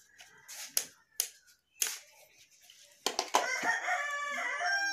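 A rooster crows once, a long crow starting about three seconds in, and it is the loudest sound here. Before it come a few sharp clicks as the multimeter test probes are handled.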